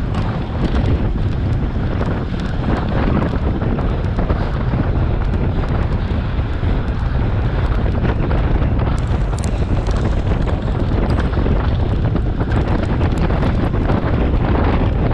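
Steady, loud wind rushing over the microphone of a bike-mounted camera on a road bike racing at about 20 to 28 mph.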